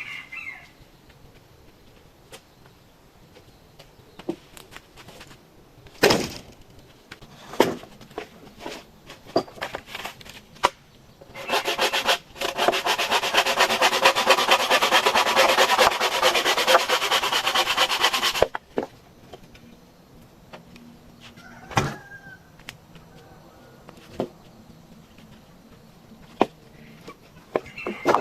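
Bamboo being worked with hand tools: scattered sharp knocks and taps, and midway about seven seconds of fast, rhythmic rasping, stroke after stroke, like cutting or scraping through bamboo.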